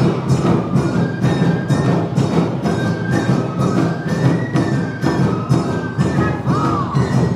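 Awa odori festival music: drums and a kane hand gong beat a steady, quick two-beat rhythm while a bamboo flute plays high melody lines over it.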